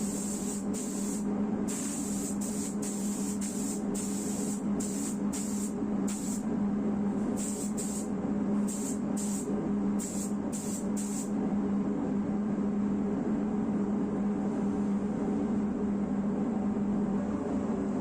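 Pneumatic spray gun hissing in many short bursts as the trigger is pulled and released, stopping about eleven seconds in, over a steady low hum from workshop machinery.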